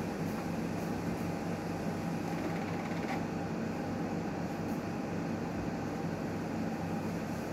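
Newmed Kronos S benchtop steam autoclave running a sterilisation cycle: a steady machine hum with a low drone and a fainter mid-pitched tone, unchanging throughout.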